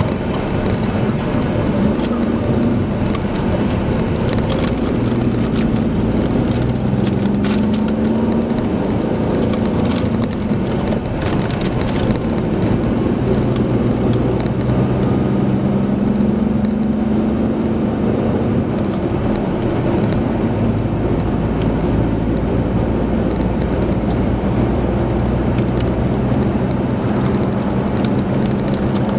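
Car cabin noise while driving on a smooth highway: a steady rush of tyre and road noise under a low engine hum that drifts slightly in pitch, with a few faint ticks.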